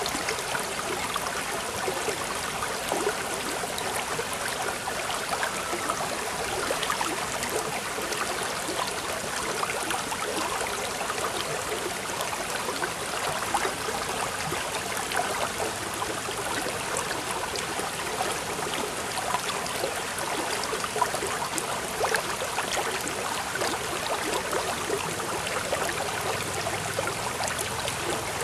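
Steady babble of flowing water, like a small stream, unchanging throughout.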